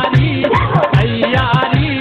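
Devotional folk song music with a steady drum beat under a melody, in an instrumental stretch between sung lines.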